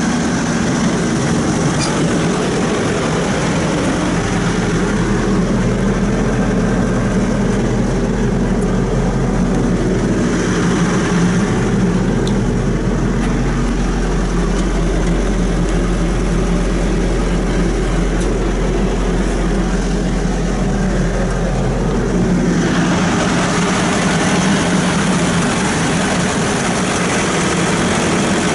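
CAT diesel engine of a Challenger SP115B self-propelled swather idling steadily. From about four seconds in until near the end it is heard from inside the cab, sounding muffled with a deeper hum, then opens up again.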